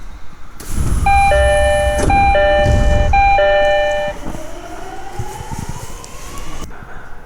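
Door chime of a Tokyo Waterfront Area Rapid Transit 70-000 series train: a two-note chime, a higher note then a lower one, sounding three times about a second apart over a loud low rumble. After it, a slowly rising whine from the train's motors.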